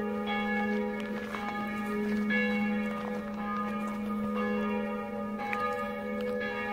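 Church bells ringing, fresh strikes about every second overlapping into a continuous, lingering peal with a steady low hum beneath.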